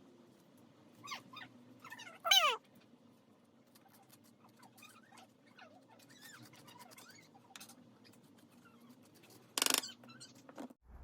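Animal squeaks and whines: short high calls that slide down in pitch, the loudest about two seconds in, with a short loud burst near the end.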